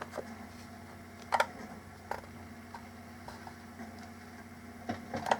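Small clicks and taps of the mini Bluetooth speaker's parts being handled during disassembly: a handful of sharp ticks, the loudest about a second and a half in, over a faint steady hum.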